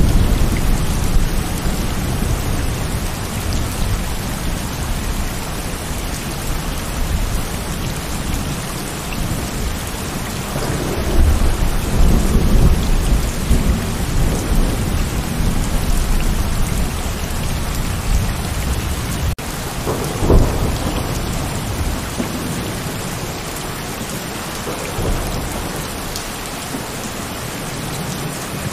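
Heavy rain falling steadily, with thunder rumbling low underneath; the rumble swells loudest about a third of the way through and comes back briefly about two-thirds through.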